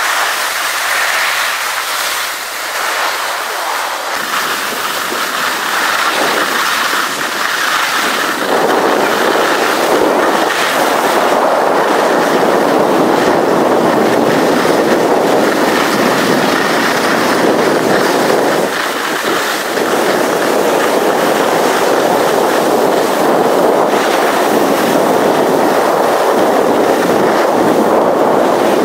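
Steady scraping hiss of skis sliding over hard-packed snow, with wind rushing over the microphone; it grows louder about eight seconds in.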